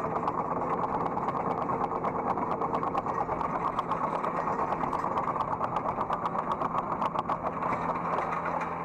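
Hydraulic excavator's diesel engine running steadily, heard from inside the operator's cab, with a dense, continuous rattle of clicks over it.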